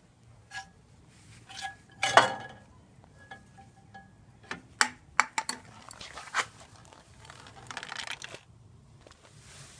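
Irregular knocks and clinks of hard objects being handled, some with a short metallic ringing. The loudest knock comes about two seconds in, followed by a brief rustle of handling near the end.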